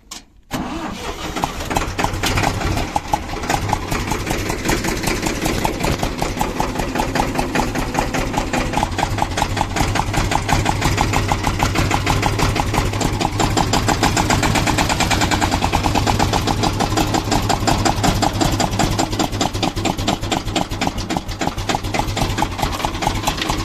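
1996 Ford 3600 tractor's three-cylinder engine starting about half a second in and then running with a rapid, even beat. The owner presents this engine sound as a problem.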